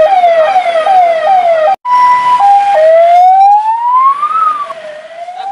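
Ambulance's electronic siren: quick falling sweeps repeating about two or three times a second, cut off sharply just before the two-second mark. It comes back as a high-low two-tone, then one slow rising wail that peaks and falls away, fading near the end.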